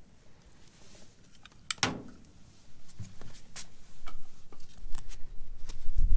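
Scattered light clicks and knocks of hands handling hardware, with one louder clack about two seconds in and low rumbling near the end.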